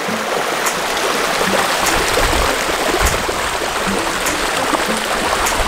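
A steady rushing noise, even and hissing, with low rumbles now and then.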